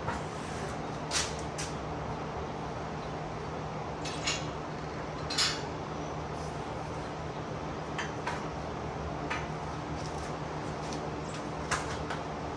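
Scattered sharp metallic clinks and clanks of steel lift parts, bolts and tools being handled, about half a dozen, the loudest about five and a half seconds in, over a steady low hum.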